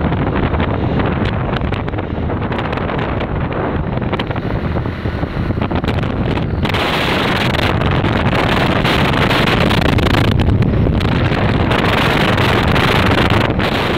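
Wind rushing over a phone microphone while travelling along a road, with steady vehicle and road noise underneath.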